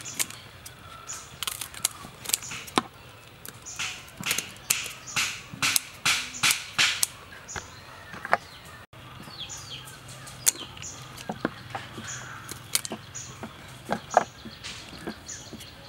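Scissors snipping through the shells and feelers of live river prawns: a run of sharp, crisp clicks at an irregular pace, thick in the first half and sparser later.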